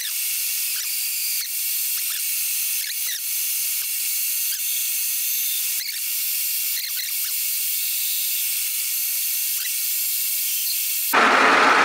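Bimetal hole saw cutting into a metal disc spinning on a lathe: a steady, thin, high hiss with several short squeals. Near the end the sound turns suddenly fuller and louder.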